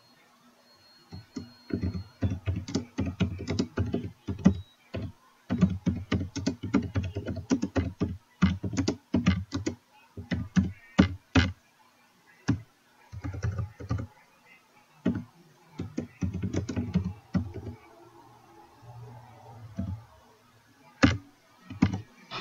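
Typing on a computer keyboard: quick runs of keystrokes in bursts with short pauses, then a few scattered keystrokes and one louder single click near the end.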